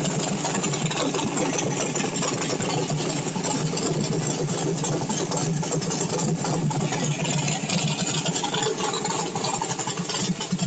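Small-block V8 on E85 through a CSU blow-through carburetor, idling steadily while it warms up after a cold start with no choke.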